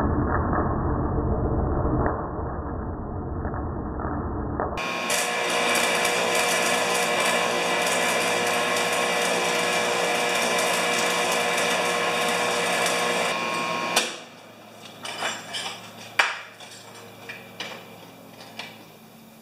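Arc welding a steel foot onto a worn snowblower skid. For the first few seconds the welding sound is slowed down to a deep, muffled rumble; about five seconds in it plays at normal speed as a steady crackling hiss, which cuts off suddenly about fourteen seconds in. A few scattered metal knocks and clanks follow as the work is handled.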